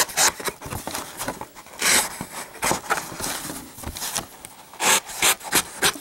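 Ganzo Firebird flipper knife's D2 steel blade slicing through thin paperboard beer-carton cardboard in a cut test, a run of short, irregular scraping cuts and tears.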